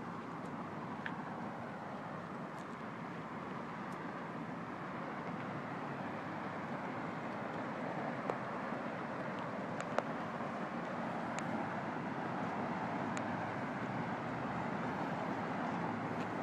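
Steady outdoor traffic noise, an even hum that grows slightly louder, with a few faint clicks scattered through it.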